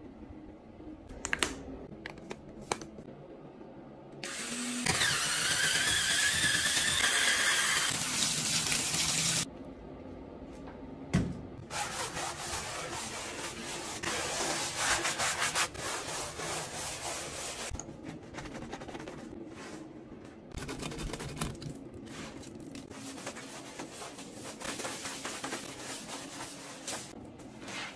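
A sponge scrubbing wet bathtub and tile surfaces, rubbing in quick repeated strokes. About four seconds in, a loud hiss with a wavering whine starts and stops suddenly about five seconds later.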